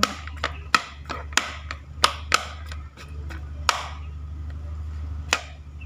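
Metal fork mashing boiled cassava in a plastic bowl, the tines knocking on the bowl in sharp clicks, about three a second for the first couple of seconds, then only twice more. A steady low hum runs underneath.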